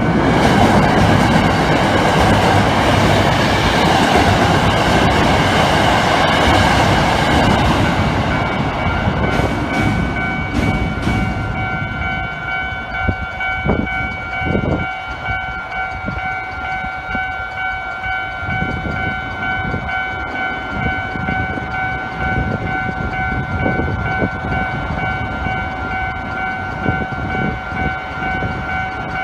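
A train passes over a Japanese level crossing: its rumble and wheel noise are loudest for the first ten seconds or so, then die away. The crossing's warning bell rings throughout, with a couple of knocks about fourteen seconds in.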